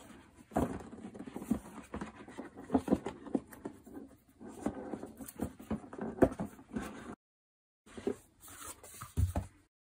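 Cardboard product box being handled and opened by hand: irregular scraping, sliding and tapping of the lid and packaging, cut by a brief gap of dead silence a little after seven seconds.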